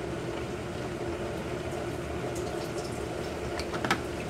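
Liquid pouring from a plastic jug over a steady background hum, with a few light clicks near the end as the jug's cap goes back on.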